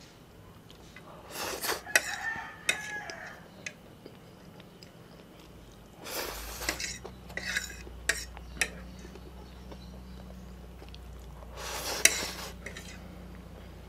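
Metal fork scraping and clinking against a ceramic plate in short bursts as the last noodles are gathered, with sharp clinks about two seconds in and near the end, between bouts of close-up chewing.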